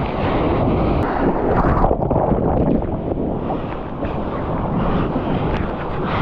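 Ocean surf and rushing water with wind buffeting the microphone.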